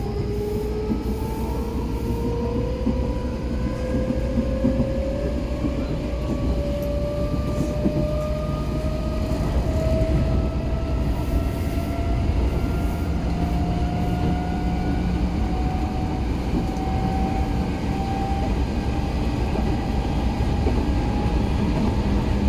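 Odakyu 4000 series electric train's traction motors whining, heard from inside the car over the steady rumble of wheels on rail. The whine rises slowly in pitch as the train accelerates, levelling off near the end.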